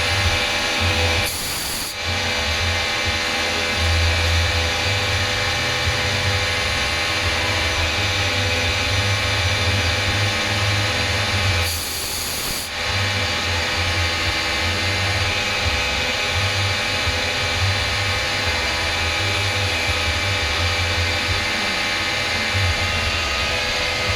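CNC machine cutting a dart barrel: a steady machining whine made of many held tones over a pulsing low hum. Twice, about a second and a half in and again about twelve seconds in, the cut pauses briefly under a short high hiss.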